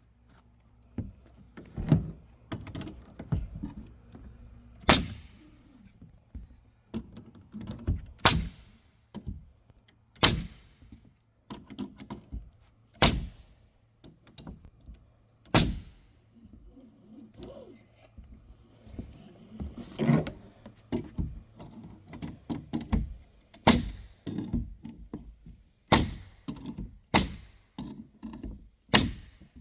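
Pneumatic palm nailer driving nails into wood: a sharp strike every one to three seconds, with lighter rapid taps between the loud strikes.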